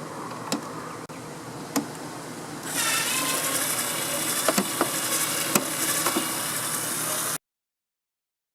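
Light clicks and knocks of a screwdriver and the plastic dehumidifier casing being handled while screws are being removed. About a third of the way in a steady hiss comes in, and near the end the sound cuts out abruptly.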